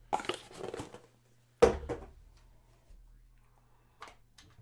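Handling noise from opening a cardboard trading-card box: short scrapes and rustles, then a single sharp knock about a second and a half in, the loudest sound. A few faint clicks near the end as a stack of cards is handled.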